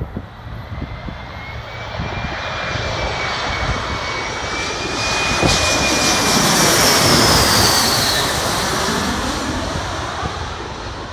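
Embraer ERJ-175LR regional jet's twin GE CF34-8E turbofan engines passing low overhead on final approach. The jet noise builds, peaks about seven seconds in, then fades as the plane moves away. A high whine falls in pitch as it passes.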